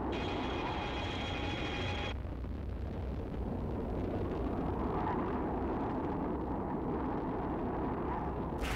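Sci-fi TV sound effects of a space battle: a steady low rumble, with a high electronic whine for about the first two seconds as the space station fires its beam, cutting off suddenly. A sudden blast begins just before the end.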